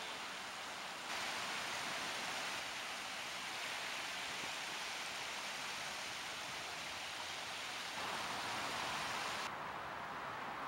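Steady rushing noise of wind and sea at the shore. It changes abruptly in level and tone about a second in and twice more near the end, where separate clips are spliced together.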